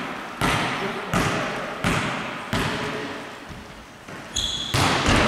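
A volleyball bounced on a wooden sports-hall floor, about one bounce every 0.7 s with each one ringing in the hall: a server readying to serve. About four seconds in there is a brief high tone, then two sharper hits near the end.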